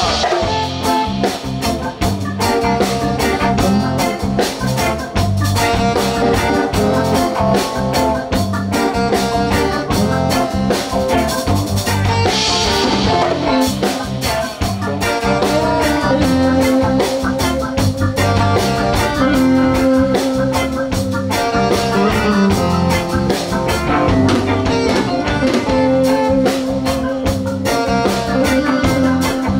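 Live reggae band playing an instrumental dub section: drum kit keeping a steady beat, electric guitar, and repeating low bass notes.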